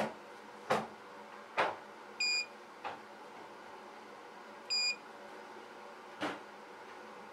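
A stylus tapping the touchscreen of a Trimble CFX-750 tractor GPS display during touchscreen calibration: four short sharp taps, with two short electronic beeps from the unit between them. The calibration fails on the defective touch screen.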